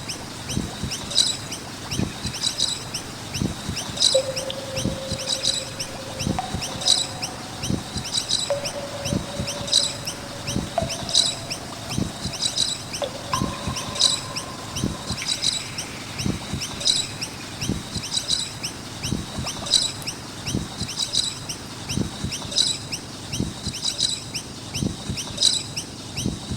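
Noisy miners chirping, high short calls repeating at an even pace, about one and a half a second.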